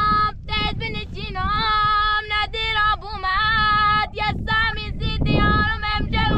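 A high voice singing a melody with long, wavering held notes and slides between them, over a steady low background noise.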